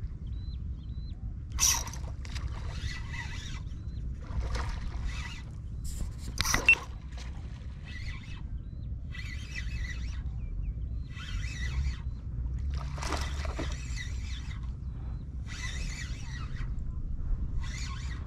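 Spinning reel cranked in short bursts with pauses, a stop-and-go lure retrieve, over a steady low rumble of wind on the microphone. Two sharp clicks come before the cranking sets in.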